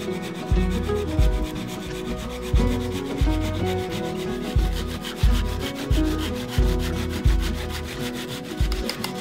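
Background music with a steady beat: a low pulse roughly every two-thirds of a second under a fast, even, scratchy rhythm.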